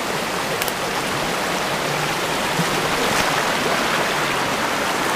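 Shallow river rushing over rocks in a riffle, a steady even noise of running water, with a couple of faint clicks about a second in and near the middle.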